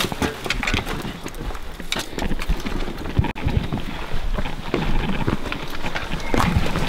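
Footsteps, scuffs and scraping on bare rock as a shot deer is hauled down a rocky slope, with wind rumbling on the microphone.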